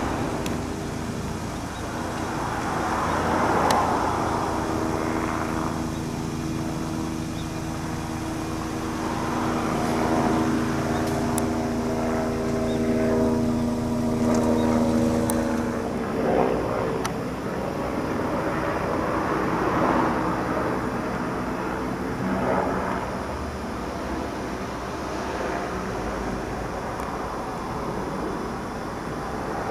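Helicopter flying overhead: a steady engine and rotor drone that swells and eases several times, with a hum of several steady tones in the first half.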